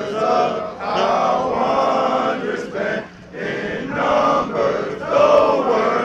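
A group of men chanting together in unison, in short phrases with brief breaks between them.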